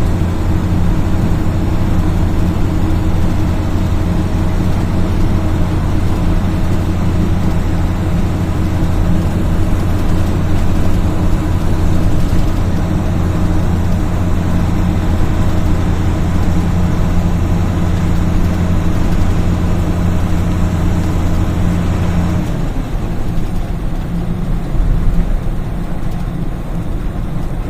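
Mercedes-Benz Eurocar G3 coach's diesel engine running on a steady note; about 22 seconds in the steady note drops away abruptly, leaving a rougher, less even engine sound.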